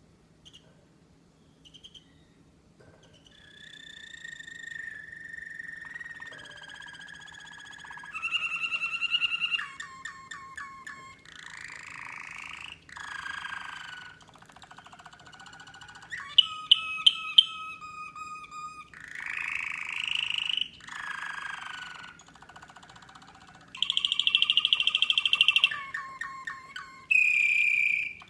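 American Singer canary singing a long, varied song that starts a few seconds in. Held whistled notes alternate with rapid trills and pulsed rolls, changing every second or two, with the loudest phrases near the end.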